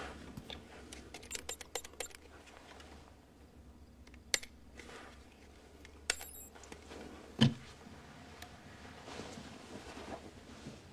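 Faint clicks and light rattles of small hard objects being handled, several in quick succession in the first two seconds and a few more later, then a soft thump about seven and a half seconds in.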